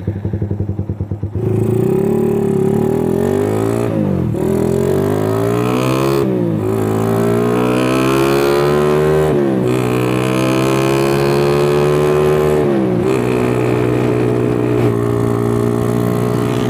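Motorcycle engine accelerating through the gears. Its pitch climbs steadily, then drops sharply at each of four gear changes.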